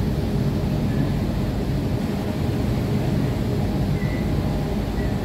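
Kolkata Metro train running at speed, heard from inside the carriage as a steady low rumble.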